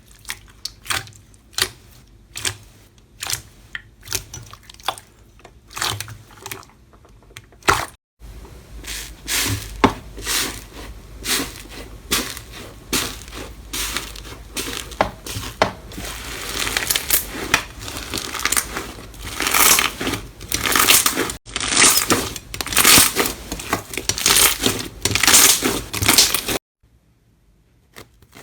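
Slime being squeezed and pressed by hand, giving quick runs of crisp crackling pops and clicks. It changes abruptly twice as different clips cut in, and it stops suddenly near the end.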